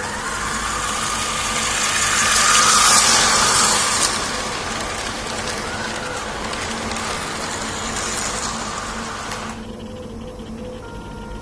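Motorised LEGO train running on plastic LEGO track: a steady motor and wheel noise that is loudest about three seconds in and cuts off sharply about nine and a half seconds in.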